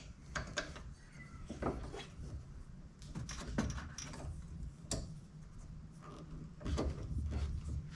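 Scattered light clicks, taps and rubbing as a 5-inch round convex cage mirror and its clamp mount are handled and pivoted on a Jeep's roll-cage bar, over a low steady hum.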